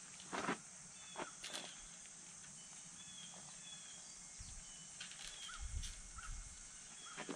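Quiet outdoor pasture ambience: a steady high insect drone with a few short bird-like chirps. There are a few short knocks in the first two seconds and a brief low rumble a little past the middle.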